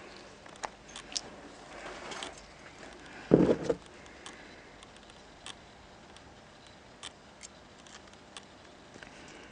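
Small metallic clicks and taps of a circlip being worked into a clutch master cylinder, with one louder clunk about three and a half seconds in.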